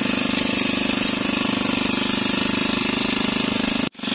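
A small engine on the fishing boat running steadily at idle with a fast, even pulse; the sound cuts out for an instant near the end.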